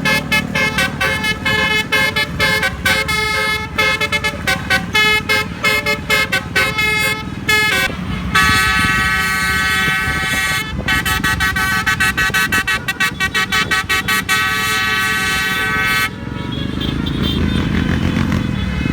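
Bus telolet air horn on the QQ Trans 'Winspector' bus playing its viral tune: a rapid run of short honked notes for about eight seconds, then one long held chord that cuts off suddenly. A low rumble is left near the end.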